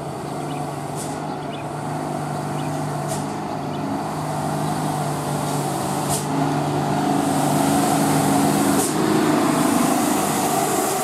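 Mitsubishi Fuso cargo truck's diesel engine running as the truck approaches and passes close by, growing louder over the second half. A few short hisses come through on top.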